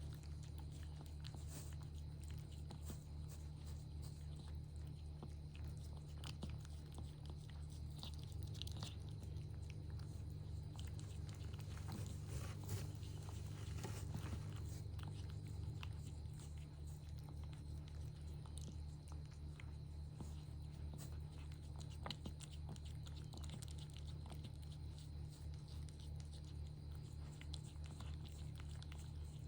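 A cat chewing, small scattered wet clicks, over a steady low hum.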